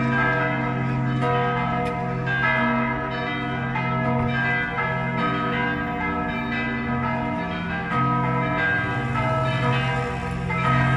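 Church bells of St. Gerhard's Roman Catholic church pealing together, several bells struck at different moments so that their ringing overlaps without a break.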